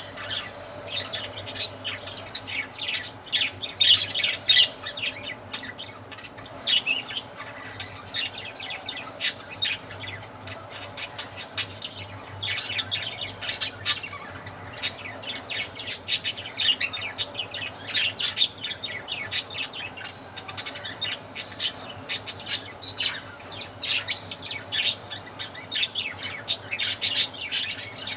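Several budgerigars chattering together, a dense run of short overlapping chirps that goes on without a break.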